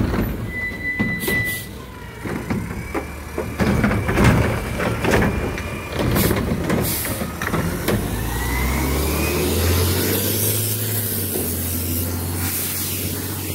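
Rumpke McNeilus front-loader garbage truck with a cart-grabbing arm: knocks and bangs from the arm and cart, with one short high beep about a second in. From about eight seconds in the diesel engine rises in pitch as the truck pulls away.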